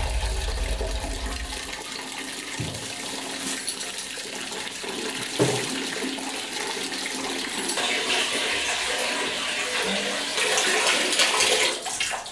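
Water running steadily from a tap, splashing, with a heavier low rush in the first two seconds and a couple of short knocks about two and a half and five and a half seconds in.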